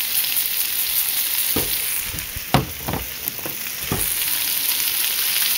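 Spinach, garlic and bell pepper sizzling in butter in a pan as they sauté, a steady frying hiss. A few sharp knocks sound in the middle.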